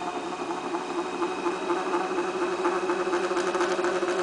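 A flexible spring-metal chatter tool bouncing against clay on a spinning potter's wheel, a fast buzzing rattle over a steady hum that grows a little louder. The tool is skipping over the surface and cutting chatter-mark texture, its rate set by the wheel speed and the pressure on the tool.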